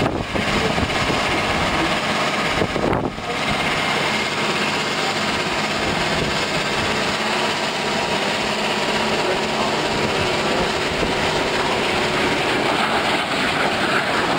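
Steady aircraft engine noise, dense and unbroken, with a brief dip about three seconds in.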